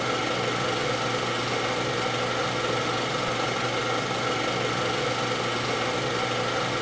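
Steady machine-like whirring hum: several held tones over an even hiss, constant throughout.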